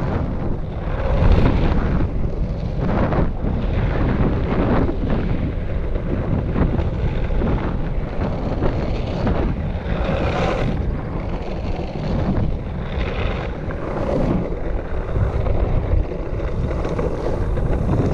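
Longboard's Powell-Peralta Snakes urethane wheels rolling fast over rough aggregate concrete and worn asphalt, a steady rumbling road noise that swells and dips, with wind buffeting the microphone.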